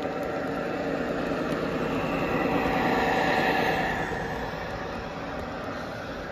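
Model diesel locomotive and its train rolling past on the layout's track: a steady motor hum and wheel rumble that swells as the locomotive passes close, loudest about three seconds in, then eases off as the cars follow.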